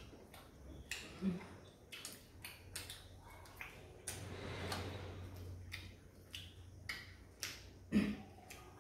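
People eating with their hands: irregular smacking and chewing clicks, mixed with light taps of fingers on steel plates and bowls.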